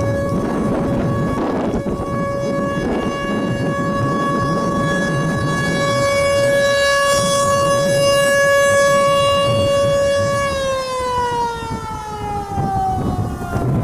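American Signal RM-130 single-tone outdoor warning siren holding one steady wail, then about ten seconds in starting to wind down, its pitch falling steadily. Wind buffets the microphone underneath.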